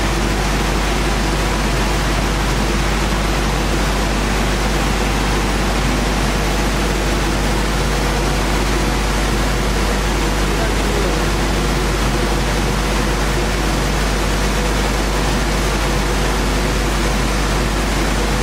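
Sanding machine for wood cores running steadily: an even, loud rushing noise over a deep low hum, with no change.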